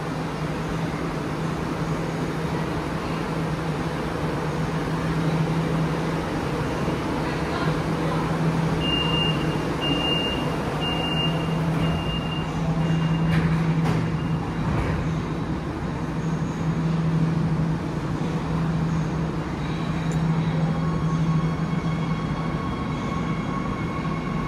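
Shanghai Metro Line 11 train with a steady low hum and rumble. About nine seconds in, five short high beeps sound about a second apart, the door-closing warning, and a thin steady whine comes in near the end as the train starts to move.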